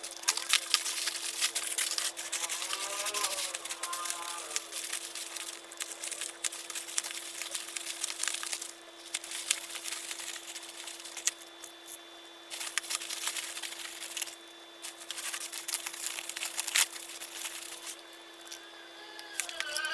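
Plastic bag and bubble wrap crinkling and tearing as a parcel is unwrapped by hand, with many sharp crackles, easing off somewhat in the second half.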